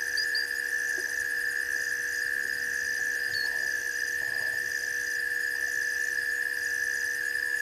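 Night chorus of insects and frogs: a steady high-pitched ringing drone, with a higher chirp above it that switches on and off about once a second, over a low steady hum.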